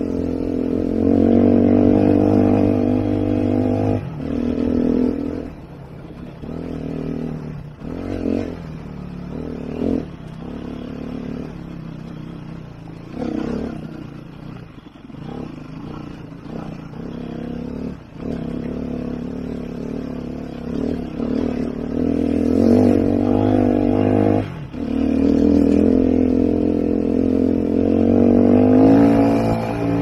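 Sherco 3.0i F 2011 four-stroke single-cylinder enduro engine under way on a rocky track, its revs rising and falling with the throttle. It pulls hard for the first few seconds and again in the last several seconds, climbing in pitch near the end. In between is a quieter stretch broken by short throttle blips.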